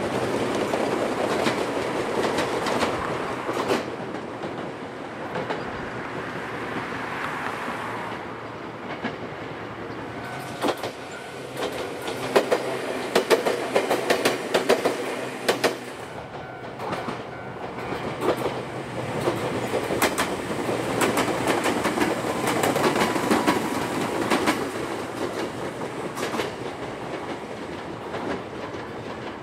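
Two-car electric trains of the Ryutetsu Nagareyama Line passing, running with a steady rumble. Their wheels click sharply over the rail joints in quick runs midway through and again later.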